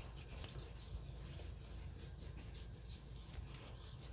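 Faint, soft rubbing of hands massaging a foaming facial cleanser into lather over wet skin.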